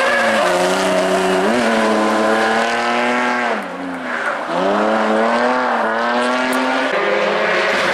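BMW E46 3 Series rally car's engine revving hard under load, the pitch climbing. It drops with a brief lift-off about three and a half seconds in, then climbs again.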